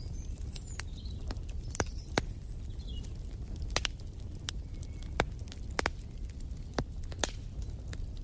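Wood fire crackling in a fireplace: irregular sharp pops and snaps over a steady low rumble of the flames, with a few faint bird chirps.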